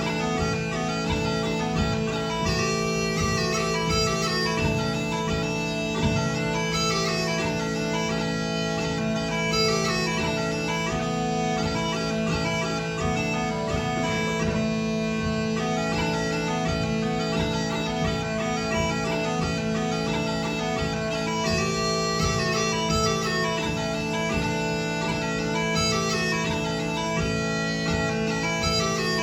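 Scottish smallpipes playing a tune, the chanter's melody moving quickly over steady, unbroken drones.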